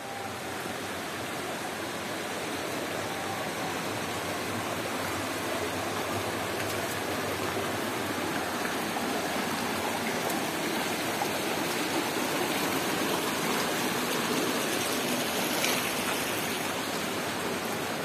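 Shallow mountain stream running over rocks: a steady rushing, splashing noise that fades in at the start and then holds even.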